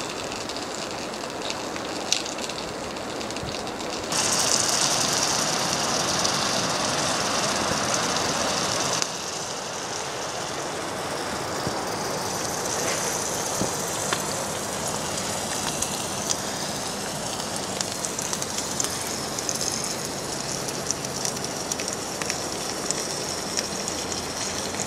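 Onion and food frying in a pan on a camp stove: a steady sizzle with fine crackles. It jumps louder about four seconds in and drops back about nine seconds in.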